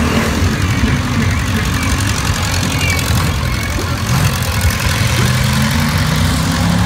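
Engines of a mud-caked lifted pickup truck and then a small old tractor running as they drive past: a steady low rumble, with a steadier engine tone coming in about five seconds in.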